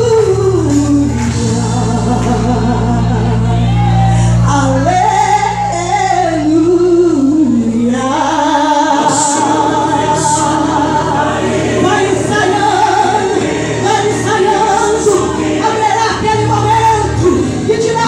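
Gospel song being performed: singing voices with vibrato over a band, with long held low bass notes that change about halfway through.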